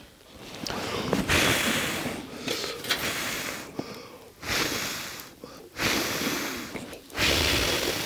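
A man's loud, breathy huffs and exhalations close to the microphone, about six or seven in a row, each lasting around a second.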